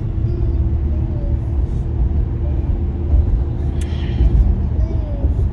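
Road noise inside a moving car's cabin: a steady low rumble, with a brief sharp noise about four seconds in.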